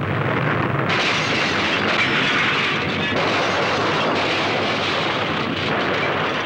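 Loud, continuous roar of a tornado's wind and churning debris, with no let-up. Its texture shifts about one, three and five and a half seconds in.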